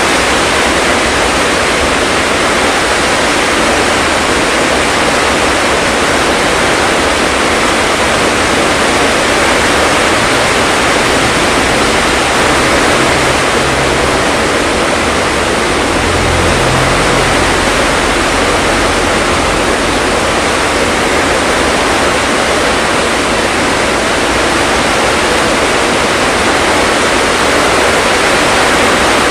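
Heavy rain pouring down in a steady, loud, even hiss.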